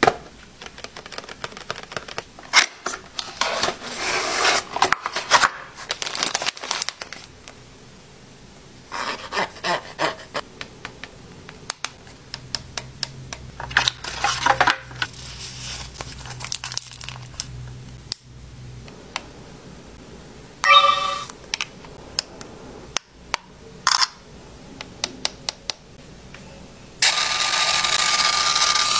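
Unboxing a Canon Ivy Cliq 2 instant camera printer: cardboard and paper packaging rustling, crinkling and tearing, with many light clicks and taps as parts are handled. A brief chime-like tone sounds about two-thirds of the way through, and a steady mechanical whir with a held tone starts near the end.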